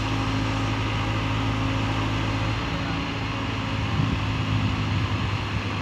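Diesel engine of heavy construction machinery running steadily with a low, even hum; a slightly higher engine tone joins about three seconds in.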